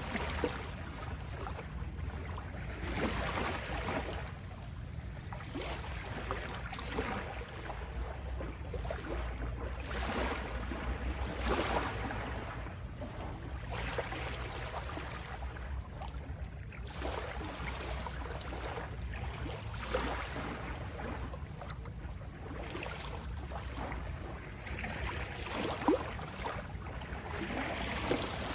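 Small sea waves lapping on a shore, a soft wash of water swelling and falling back every two to three seconds over a steady low rumble.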